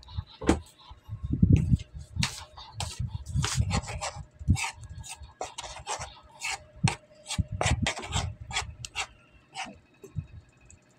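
Metal spoon stirring and folding thick banana-fritter batter in a bowl: wet squelching with irregular scrapes and knocks of the spoon against the bowl.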